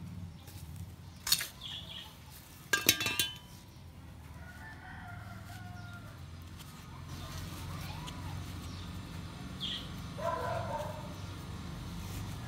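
A rooster crowing in the background: one long crow around the middle and a shorter, stronger one near the end, over a low steady hum. A few sharp knocks come in the first three seconds.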